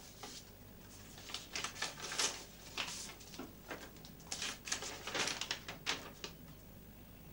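Paper rustling as an envelope is opened and a letter pulled out and unfolded: a run of short, crisp rustles in two spells.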